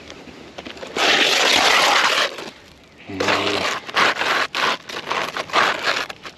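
Gritty scraping and crackling of asphalt roof shingles being handled and measured: one long scrape about a second in, then a run of short scrapes and crackles.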